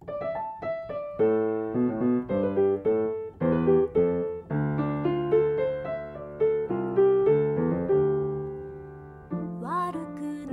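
Piano playing a melody over chords, notes struck a few times a second and left to ring.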